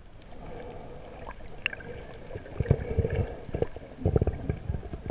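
Muffled underwater water noise heard by an action camera below the surface, with scattered faint clicks and low thumps that come thickest about two and a half seconds in and again about four seconds in.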